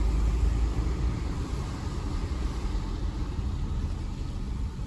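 Car driving along a road, a steady low rumble of engine and tyres.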